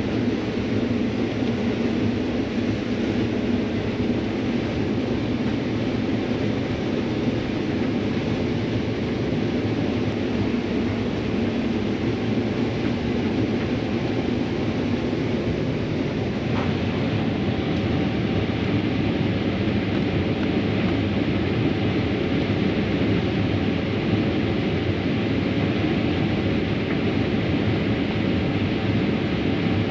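Combine harvester running steadily under load while harvesting corn: a constant engine and machinery drone.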